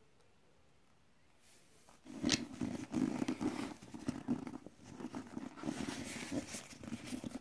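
Close rubbing and handling noise of fingers pressing a small foam squishy toy against a tabletop, uneven with scattered clicks, starting about two seconds in.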